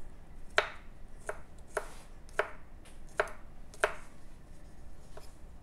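Kitchen knife slicing a garlic clove on a wooden cutting board: separate sharp cuts about one every half-second, with about six clear strikes and then a few fainter ones near the end.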